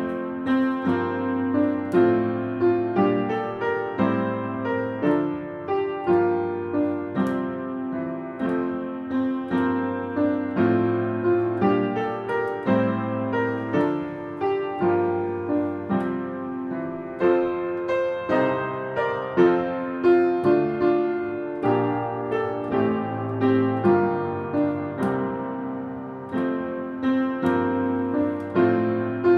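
Solo piano music: notes and chords struck at an even, unhurried pace, each one dying away.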